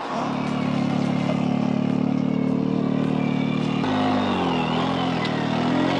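A machine's engine running steadily with a deep, even hum. About four seconds in, its pitch shifts and then wavers slightly.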